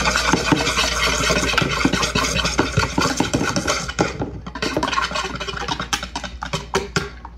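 Wire whisk beating egg whites by hand in a plastic bowl: fast rattling and scraping of the wires against the bowl, with a brief pause about four seconds in.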